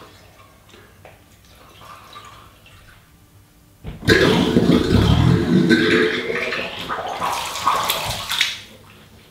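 Water gushing up out of a water pump's open priming port and splashing onto a concrete floor as the pump is primed. It starts suddenly about four seconds in, runs for about four seconds and dies away.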